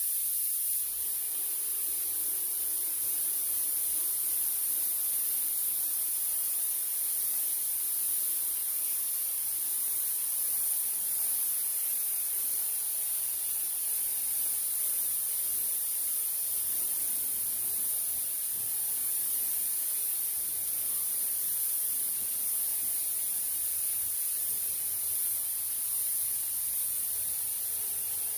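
Compressed air hissing steadily from the air hose and paint spray gun, an even, high hiss that does not change.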